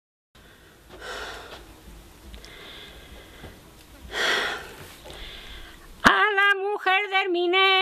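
A woman's voice starts singing unaccompanied about six seconds in, holding long wavering notes. Before it there is only a faint hiss with two short breathy swells.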